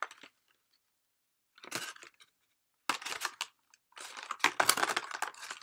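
Crinkling and rustling of a Funko Pop box and its packaging being handled, in three bursts with short pauses between them.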